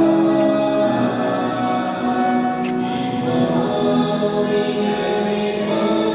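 Music with several voices singing together in long held notes.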